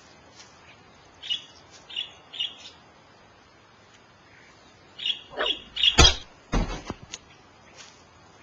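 Birds chirping, a few short high calls and then a louder run of calls, with a sharp knock about six seconds in and a second dull thump just after.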